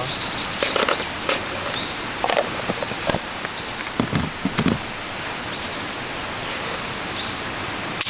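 Woodland ambience: a steady hiss of background noise with small birds repeatedly giving short, high chirps. A few light clicks and knocks of bowls and chopsticks come through, the loudest about four seconds in.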